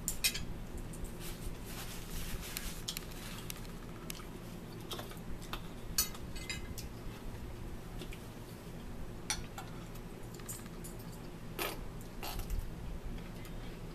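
Quiet mealtime table noise: scattered light clicks and clinks of a fork against a plate and small handling sounds of food and containers, a few a little louder than the rest.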